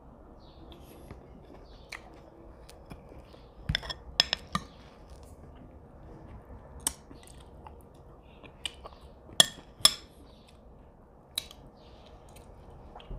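Eating sounds: a metal spoon clinking and scraping in a ceramic bowl of ice cream, with chewing between. The sharp clicks come scattered and irregular, loudest in a cluster about four seconds in and a pair near the middle.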